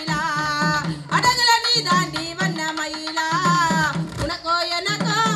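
A woman singing a Tamil karakattam folk song over a quick, steady drum beat from a naiyandi melam band.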